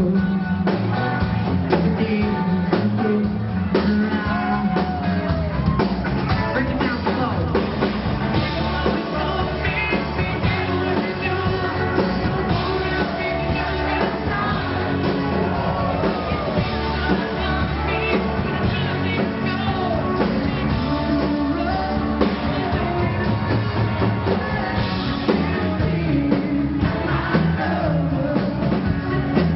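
Rock band playing a song, with drums, bass and guitar under a singing voice.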